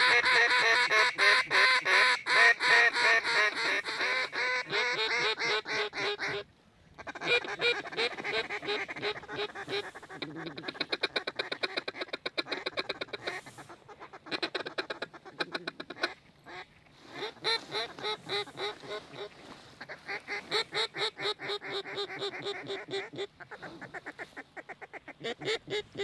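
Waterfowl calls blown by hunters: long, fast strings of short call notes, loudest for the first six seconds, each run stopping abruptly for a brief pause before the calling starts again.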